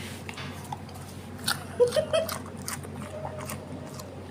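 Golden retriever chewing and crunching a guava: scattered wet mouth clicks, with a cluster of sharp bites about two seconds in.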